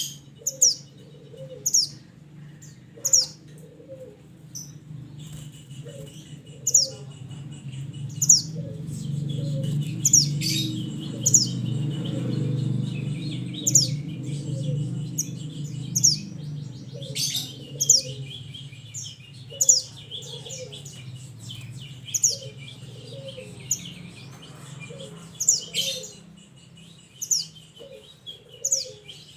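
Minivet calls: sharp, high-pitched notes that fall in pitch, repeated about once a second, over a lower, fast chattering trill. A low rumble rises under them in the middle.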